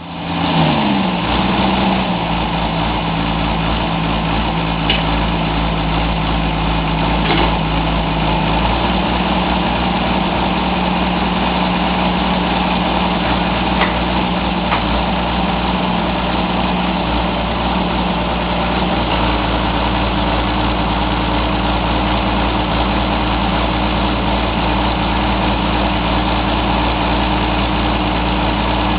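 Truck-mounted core-drilling rig running: its diesel engine and hydraulic drive give a steady drone. The drone's pitch drops over the first couple of seconds and changes again about two-thirds of the way through. A few faint metallic clinks sound over it.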